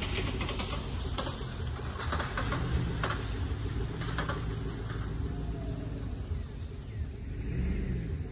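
An SUV's engine running at low speed as it drives past towing a loaded utility trailer. The trailer gives off irregular clanks and rattles over the uneven grass during the first five seconds.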